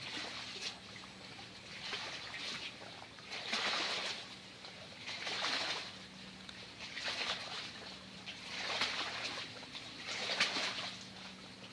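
Rhythmic water sloshing: swells of swishing noise rise and fall about every second and a half to two seconds, over a faint steady low hum.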